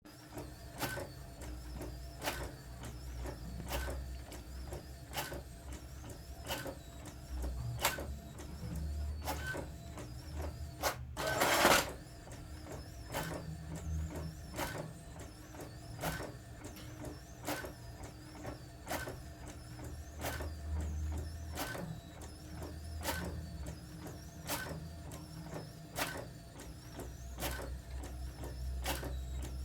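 Brother DCP-T700W ink-tank inkjet printer printing. It runs with a low mechanical hum and a sharp click about every second and a half, and a louder burst of noise comes once, about eleven seconds in.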